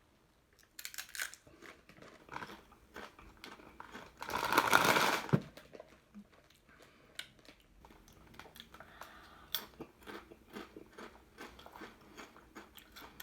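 Chicken and tomato flavoured Lay's potato chips being bitten and chewed: many short, crisp crunches, with a louder crackle lasting about a second about four seconds in.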